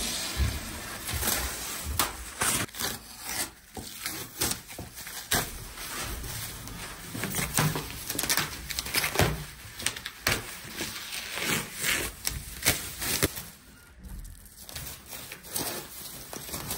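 Plastic masking film crinkling and rustling as it is peeled off a car's bodywork and bunched up by hand, in irregular crackly bursts.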